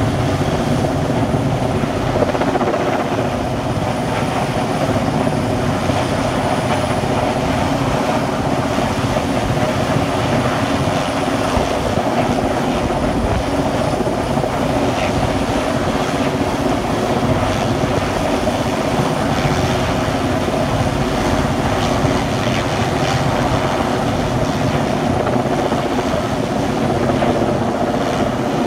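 Helicopter hovering overhead with a slung load, its rotor and engine running loudly and steadily.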